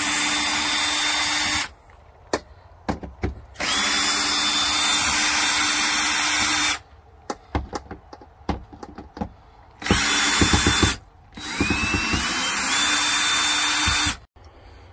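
Cordless drill/driver running in reverse, backing screws out of a door frame: four runs of a steady motor whine a few seconds each, the last one rising in pitch as it spins up. Light clicks and taps in the gaps between runs.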